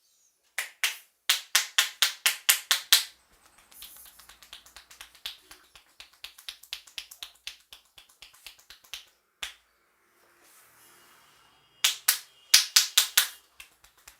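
Percussive head massage: two runs of loud, sharp hand strikes on the head, about five a second, with softer quick patting in between and one lone sharp click.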